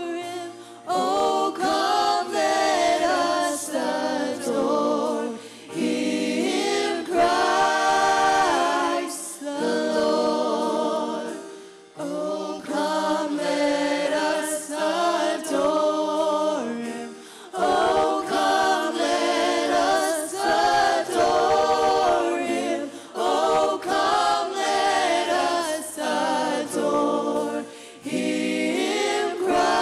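Worship vocalists, men and women, singing a slow worship chorus together in harmony, in phrases broken by short breaths.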